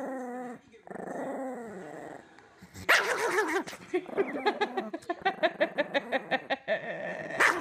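Long-haired chihuahua giving a warning growl: two long wavering snarls, a sharp bark about three seconds in, then a fast run of short growls, about five a second.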